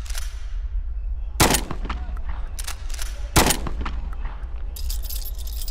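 Gunshot sound effects: three sharp shots, each with a ringing tail, with lighter clicks between them, then a quick rattle of small high clicks near the end, over a steady low drone.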